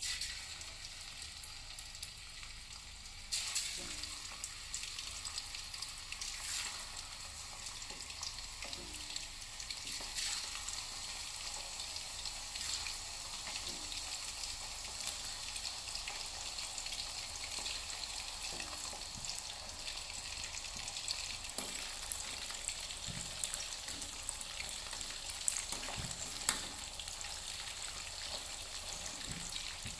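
Raw chicken pieces deep-frying in hot oil in a wok: a steady sizzle with scattered pops and crackles, stepping up louder about three seconds in.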